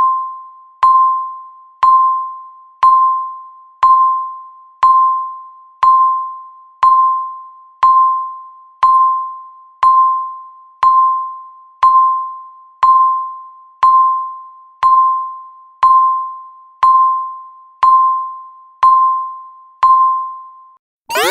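Countdown timer beeping once a second, each beep a single tone near 1 kHz that strikes and fades away. Right at the very end the beeps stop and a loud alarm noise of quickly repeated rising sweeps starts as the count reaches zero.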